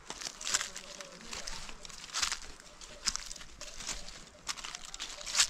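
Footsteps crunching on dry leaves and loose stones while climbing a steep slope, irregular steps about one every second or less, the last one loudest.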